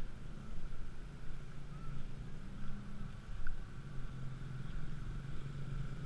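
Small motorcycle engine running steadily at low speed, a low even hum.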